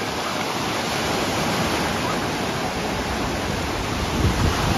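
Ocean surf: small waves breaking and washing through shallow water, a steady rush, with a deeper rumble near the end.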